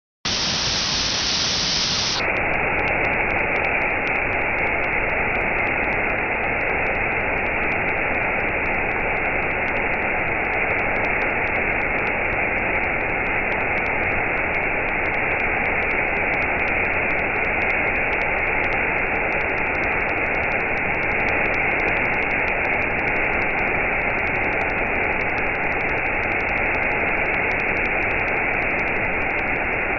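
Waterfall pouring over a rock ledge into a shallow pool: a steady, unbroken rush of falling water.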